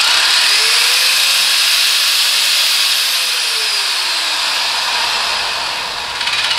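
Eastwood Contour SCT surface-conditioning tool running free with its abrasive drum spinning in the air, its motor whine rising as the speed is turned up, then falling as it is turned back down.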